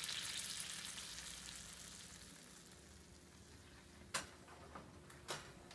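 A hot oven pan of baked haddock, fresh from the oven, sizzling faintly, the sizzle dying away over the first couple of seconds. Near the end come two sharp clicks about a second apart.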